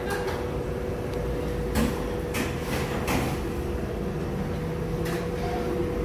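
Indoor eatery room noise: a steady low hum with a thin held tone, broken by a few light knocks and clatters, around two and three seconds in and again about five seconds in.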